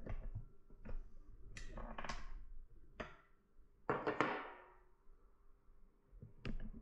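An 1830s Kuchenreuter bellows airgun being handled and readied to shoot: a string of short clicks, knocks and thunks from its mechanism, the loudest a little after the middle with a brief ring, and one more sharp crack just before the end.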